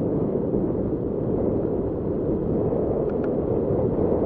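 Wind buffeting the action camera's microphone while riding a mountain bike: a steady, loud, low rumbling rush, with a couple of faint ticks about three seconds in.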